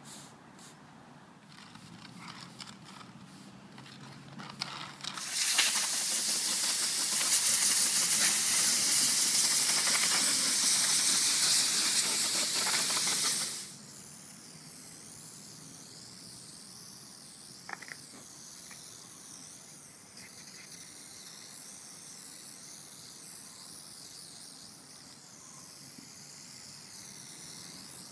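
Aerosol can of tyre-foam cleaner spraying in one long, loud hiss lasting about eight seconds, cut off abruptly. Before it, a stiff broom sweeps lightly over the rubber speed hump.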